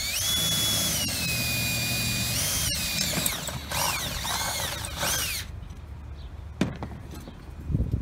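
DeWalt cordless drill whining with its bit spun and wiggled in a freshly drilled hole in an aluminum pot to clear the burrs. It speeds up at the start, drops in pitch partway through, then rises and falls a few times before stopping after about five and a half seconds. A click and a knock follow near the end as the drill is put down.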